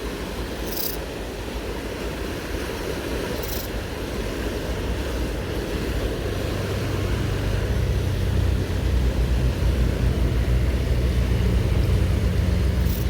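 Fast river water rushing steadily. A low engine drone rises in from about halfway through and grows louder toward the end, with a few faint clicks on top.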